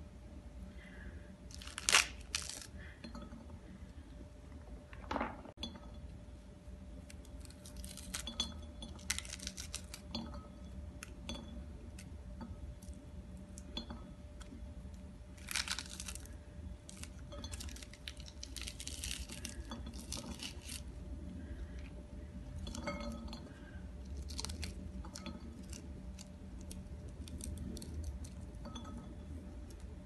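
Pomegranate being broken apart and its arils picked out by hand: irregular crackling and tearing of the rind and pith, with seeds clicking as they drop into a glass bowl. A sharp crack about two seconds in is the loudest.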